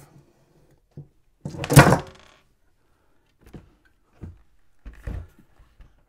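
The projector's removed back cover is set down on a wooden bench with a loud thunk and a brief rattle about a second and a half in, followed by a few lighter knocks of handling.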